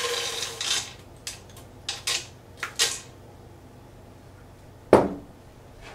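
Butterscotch chips poured from a glass measuring cup into a pot, a brief rattling rush, followed by a few short rattles as the last chips are shaken out. A single sharp knock about five seconds in is the loudest sound.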